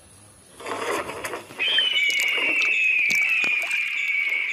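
A rushing whoosh, then a loud, long, high whistling tone that slowly falls in pitch, with a few light clicks.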